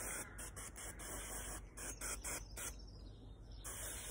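L'Oréal Magic Retouch root touch-up aerosol can spraying, a high hiss in a run of short blasts, then a pause and a longer blast near the end.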